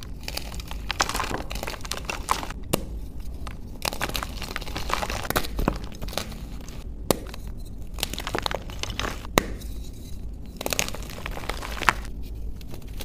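Soft plain white (undyed) gym chalk being broken and crumbled by hand: continuous uneven crunching and crackling, with a few sharp snaps as blocks break apart.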